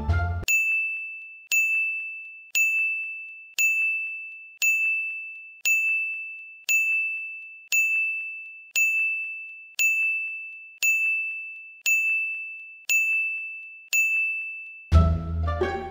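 A single high bell-like ding sounding about once a second, some fourteen times, each ring fading away before the next strike.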